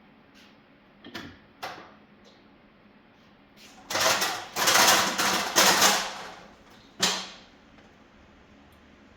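Manual pallet jack being worked: a couple of light clicks, then about two seconds of loud metallic rattling and clattering, and one sharp clack near the end.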